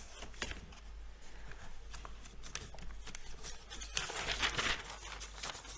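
Faint rustling and handling of paper sheets at a lectern microphone, with scattered soft clicks and a louder rustle about four seconds in, over a steady low hum.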